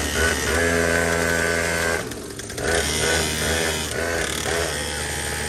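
Small engine of a mini pocket bike running steadily at idle, with a short dip in level about two seconds in.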